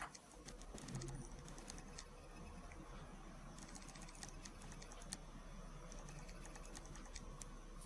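Faint, irregular light clicks and taps as a ginger kitten paws a small toy ball on a rug, over a low steady hum.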